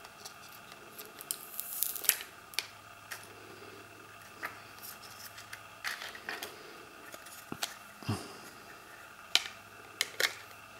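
Hands working a plastic Otterbox Defender phone case and its protective film: scattered sharp clicks and snaps with soft scrapes and crinkles between them, as the film is peeled off and the case pieces are pressed together around the phone.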